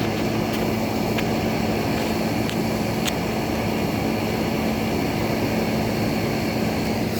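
Air conditioner running: a steady hum with a constant low drone and a few faint clicks.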